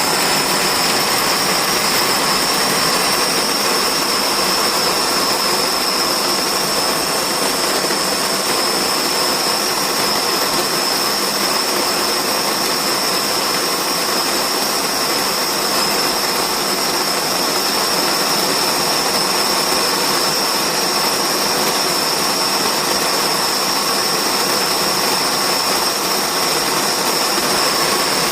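Electric conical burr coffee grinder running continuously, a steady motor noise with a high whine over it.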